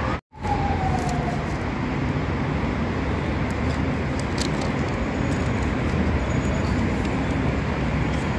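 Steady road-traffic rumble heard from an open-air terrace, with a falling whine in the first second and a brief dropout just after the start.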